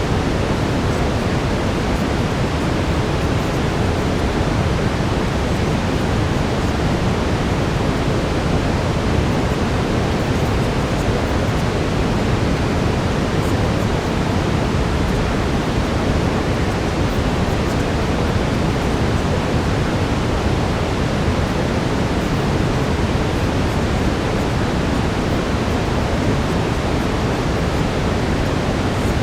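Steady brown noise: a dense, even rushing hiss weighted toward the low end, with no change in level.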